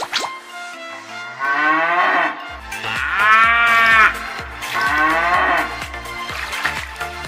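A cow mooing three times in long, drawn-out calls, the middle one the loudest, over background music with a steady beat.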